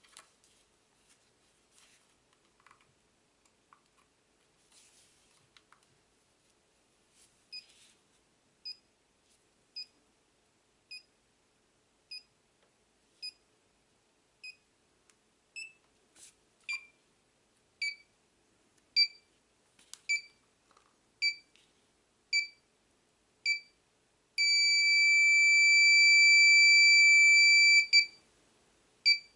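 A 555-timer EKG monitor sound-effect circuit gives short, high heart-monitor beeps a little over once a second, after a few faint clicks at the start. The beeps grow louder about halfway through. Near the end they give way to a continuous tone of about three and a half seconds, like a monitor's flatline, and then the beeps resume.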